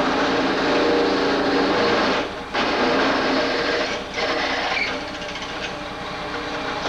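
Drill press running with a half-inch twist bit cutting into steel over a pilot hole: a steady motor hum under the grinding of the cut. It eases off briefly twice.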